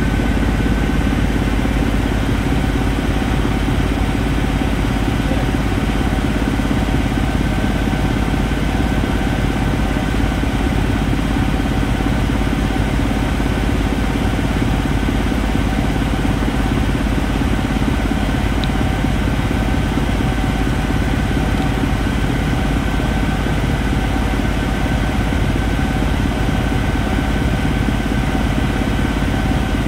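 Steady drone of a light aircraft's engine and propeller heard inside the cockpit in flight, a constant hum with several fixed tones over rushing noise.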